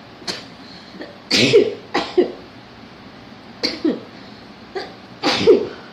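A woman sneezing several times in quick succession, set off by tickling her nose with a handkerchief. The loudest sneezes come about one and a half seconds in and near the end.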